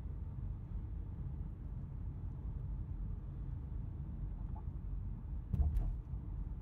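Steady low rumble of road and engine noise inside a moving car's cabin, with a couple of brief knocks about five and a half seconds in.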